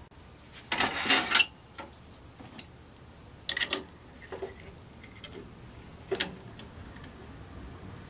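Metal clicks and rattles of chuck keys being fitted into a wood lathe's four-jaw scroll chuck and turned to loosen its jaws: one longer rattling clatter about a second in, then a few separate clicks.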